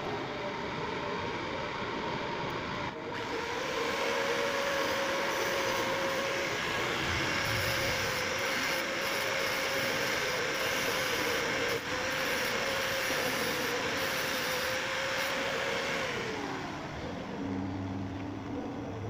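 Electric angle grinder running, its disc grinding the end of a steel hand tap held in a vise, to shape it into a square punch. The motor holds a steady pitch, then winds down with a falling whine about sixteen seconds in.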